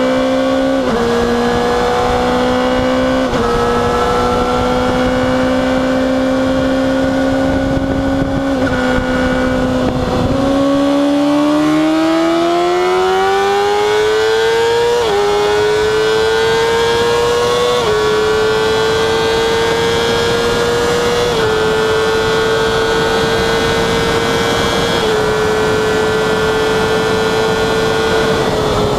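Honda CBR600RR's inline-four engine under hard acceleration, heard from on the bike. For about ten seconds the note holds fairly steady. It then climbs in pitch through one gear and goes up through four quick quickshifter upshifts, each a brief step down in pitch followed by a slow climb. Wind rushes over the microphone the whole time.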